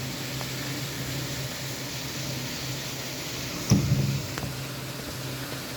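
Steady hiss of heavy rain with a low steady hum under it, broken once, a little past the middle, by a single sudden thump.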